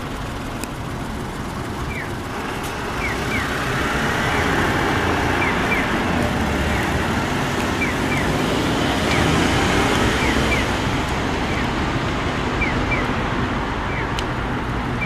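Japanese pedestrian crossing signal's audible guide, a pole-mounted horn speaker playing a short falling 'pyū' chirp for the green walk phase, single chirps alternating with double chirps, starting about two seconds in. Heavy road traffic passes under it, louder twice as vehicles go by.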